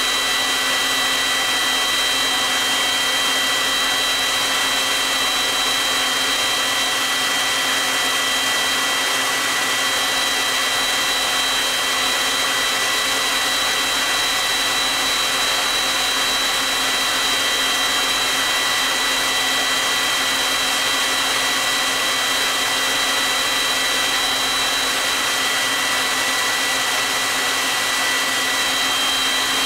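Electric heat guns blowing steadily at full power, run through a pair of 3000-watt inverters as a roughly 4.6 kW, 377-amp load on a car-audio LiFePO4 battery. A steady high-pitched whine sits over the rushing air.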